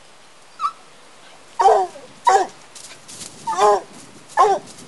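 Young Black and Tan coonhound barking at a raccoon in short barks, four loud ones spaced roughly a second apart, with a fainter call before them.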